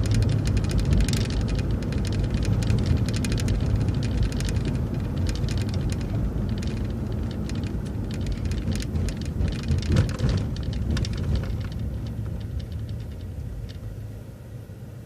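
MCO ViewMaster transit bus heard from inside, running with a low drone, road noise and many small body rattles. It gradually gets quieter as the bus slows for a stop sign.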